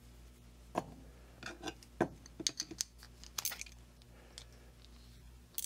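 Scattered light metal clicks and clinks from handling a ratchet, socket and lag bolt, as the socket is fitted over the bolt's lock nut, starting about a second in and thickest in the middle.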